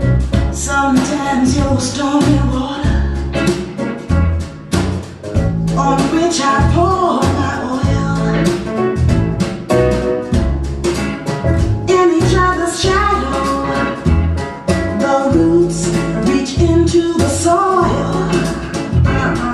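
A song with a steady drum beat, bass and guitar, and a sung melody line.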